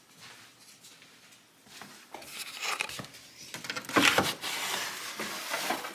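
Plastic pet-door cover being unlatched and pulled out of its frame: clicks and plastic clatter starting about two seconds in, loudest around four seconds.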